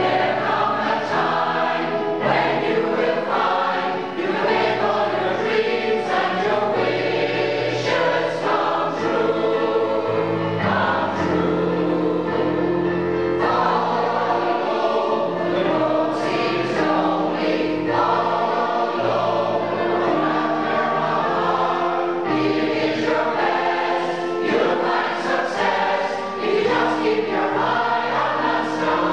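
A choir singing, steady and unbroken.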